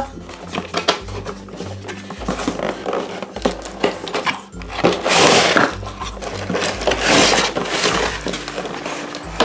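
Packaging rustling and scraping as a toy box is opened and emptied, with two louder swishes about five and seven seconds in, over background music.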